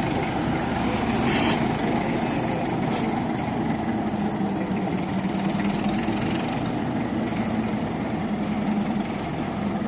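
Engine running steadily, with a brief hiss about a second and a half in.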